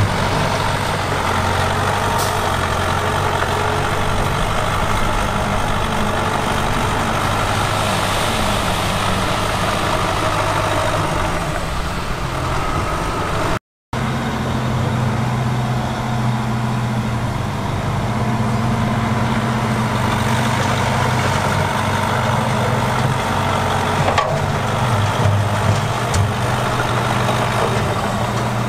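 Heavy diesel engine of earthmoving machinery running steadily with a low hum. It cuts out briefly about halfway through, then resumes with a slightly different engine note, and there are a few light knocks near the end.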